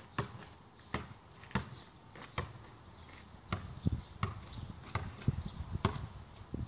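Basketball being dribbled, a run of sharp bounces about once or twice a second that come faster and heavier about halfway through.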